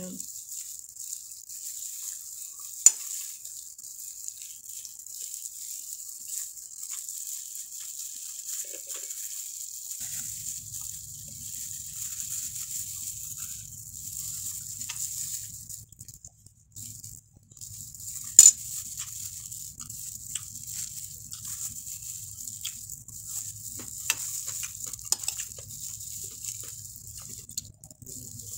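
Eating and food-handling sounds: plastic-gloved hands picking at a fried tilapia and rice, heard as a steady high hiss with fine crackle. There are two sharp clicks, about three seconds in and again near eighteen seconds, and a low hum joins about ten seconds in.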